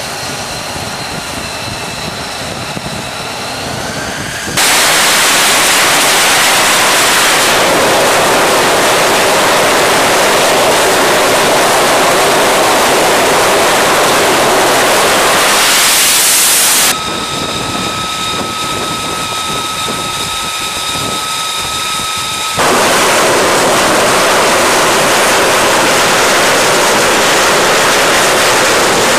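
F-35C Lightning II's F135 turbofan engine: a whine with steady high turbine tones, switching abruptly to a loud, steady roar of the engine run up to full power for a catapult launch. About halfway through, the whining tones return for several seconds before the roar resumes.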